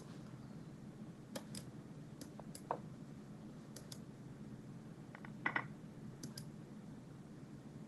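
Scattered light clicks of a computer mouse moving pieces in an online chess game, coming singly and in small bunches, with a cluster about five and a half seconds in, over a faint steady low hum.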